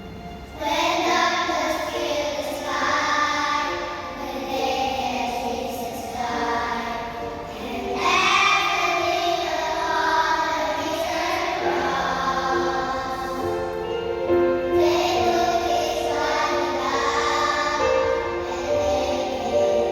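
A choir singing held notes in phrases a few seconds long, coming in about half a second in.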